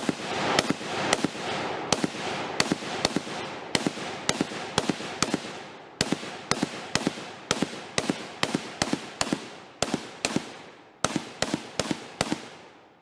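M1919 Browning chambered in .308 firing a long string of about thirty single shots, roughly two to three a second, each crack followed by a short echo tail. The shooting stops near the end.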